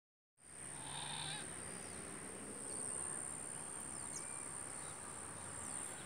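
Outdoor natural ambience: a steady high-pitched insect drone, with a few faint bird calls.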